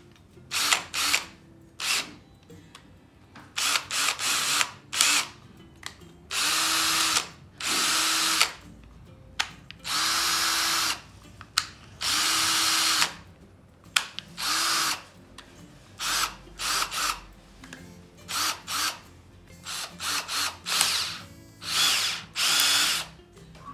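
Parkside PSBSA 20-Li B2 20 V cordless hammer drill running with an empty chuck in repeated short trigger pulls: many quick blips and a few longer runs of about a second, each a steady motor whine that starts and stops abruptly.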